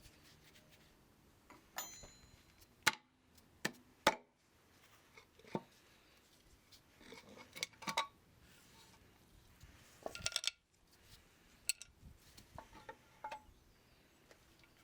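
Irregular metallic clinks and sharp taps of hand tools and loose metal parts being handled on the engine, with a quick cluster of clinks about ten seconds in.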